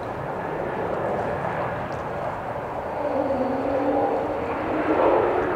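Airbus A321 airliner landing: steady jet-engine noise as it meets the runway and rolls out. About three seconds in the engine sound grows louder, with a low steady hum joining it.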